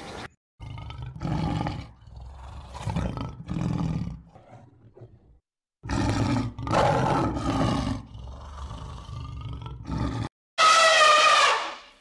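A lion roaring: a series of deep, rough roars and grunts with short pauses between them. Near the end comes a louder, high-pitched trumpeting call from an elephant.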